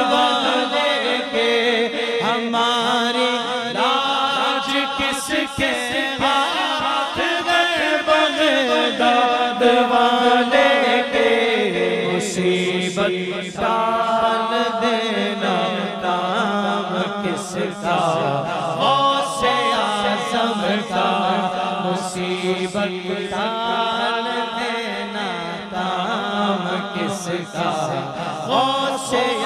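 Male voices chanting a devotional Urdu manqabat: a lead singer with other men singing along in chorus, without a break.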